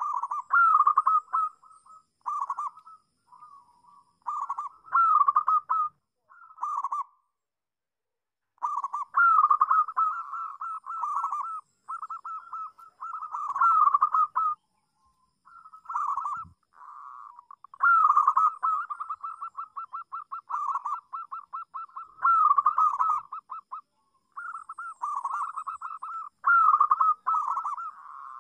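Local zebra dove (perkutut) cooing: repeated phrases of rapid, purring staccato notes at one steady mid pitch, each phrase one to three seconds long with short pauses between, and a longer break about eight seconds in.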